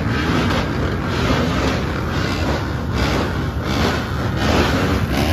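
Motocross motorcycle engines running, a loud, steady mix of engine noise.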